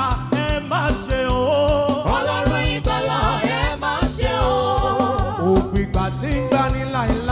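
Gospel praise-and-worship song: singing over a band with a steady drum beat.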